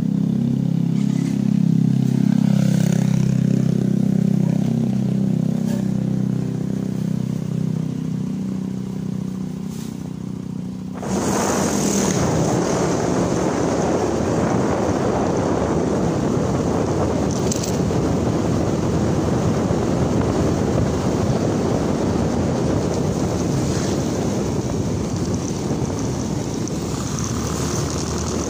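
Motorcycle engine running with a steady low hum. About eleven seconds in this gives way abruptly to riding at speed: loud wind and road rush over the microphone covers the engine.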